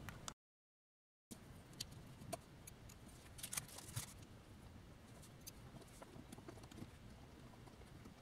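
Faint small clicks and ticks of fingers and a small tool handling a GoPro Hero5 Session's metal shield and plastic parts, more of them about three and a half to four seconds in. The sound cuts out completely for about a second near the start.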